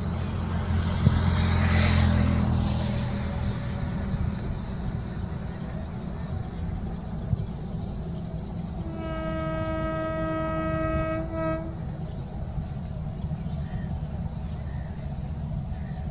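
Passenger express train running with a steady low rumble that swells briefly near the start. About nine seconds in, its horn sounds one steady blast lasting nearly three seconds.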